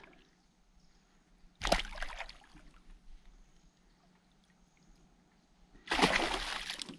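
River water splashing twice as a just-caught fish is let go: a sharp splash about one and a half seconds in, then a longer splashing near the end.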